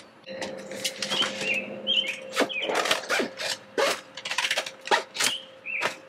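A run of sharp clicks and plastic rustling from scissors snipping and handling a plant label, with birds chirping in short calls behind it and a faint steady hum throughout.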